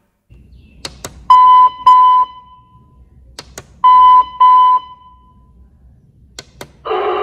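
Push buttons on the sound-effect control panel of a 1/8 scale TDF PO-1 Pointer model click, and the panel plays its communicator effect: a pair of loud, high electronic beeps, twice over. Near the end another electronic effect starts, a steady sound of several stacked tones.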